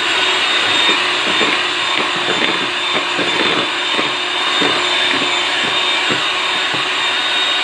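Electric hand mixer running steadily with a high whine, its beaters whipping stiff meringue of egg whites, sugar and vinegar in a plastic bowl.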